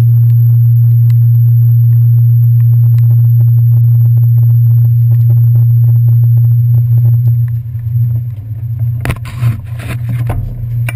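Steady low drone of a ferry's engines running at the dock. Near the end, knocks and rustling as the bicycle carrying the camera is moved.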